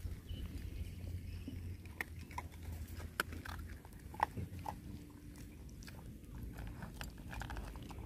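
A puppy eating dry kibble from a metal bowl: scattered sharp crunches and clicks of chewing. A low rumble sits under the first half.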